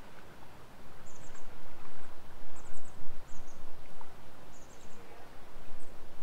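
Evening outdoor ambience: short, high-pitched chirping trills of a few quick notes each, repeating every second or so, over a steady low rumble.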